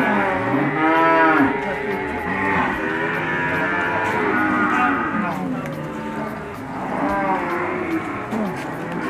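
Cattle mooing, several long calls overlapping one another throughout, the loudest about a second in.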